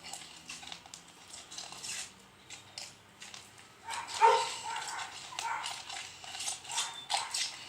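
Spoon clicking and scraping as slime is stirred in a container, then a dog barking several times in short yaps from about four seconds in, the first bark the loudest.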